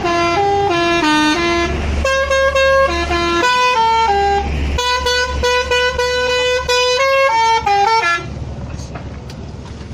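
Telolet horn, a set of electric air-horn trumpets, playing a quick tune of stepped notes up and down. The notes stop abruptly about eight seconds in.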